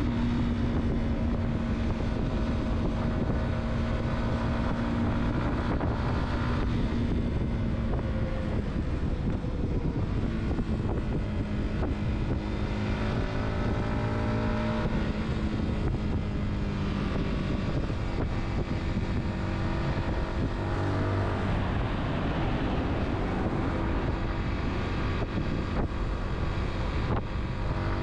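A car driving along a road: the engine note slowly falls and rises with speed, over a steady rush of tyre and road noise.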